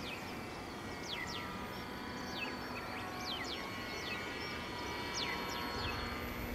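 Birds calling with short whistles that fall steeply in pitch, often in pairs, two or three a second, over a faint steady whine.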